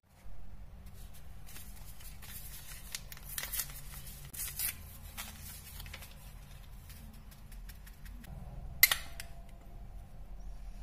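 Light knocks and rustling from handling bowls at a kitchen scale. About nine seconds in there is a sharp clink, as a ceramic bowl of sugar is tipped against a glass mixing bowl to pour the sugar onto the flour.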